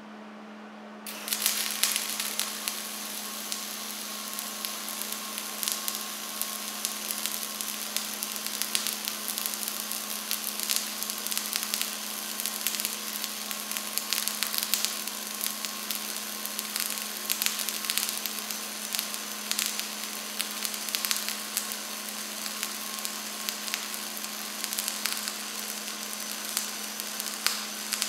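MIG welding arc on 0.035 wire, run uphill on a vertical steel joint: it strikes about a second in and then burns continuously with a steady frying crackle and frequent sharp pops, over a steady low hum.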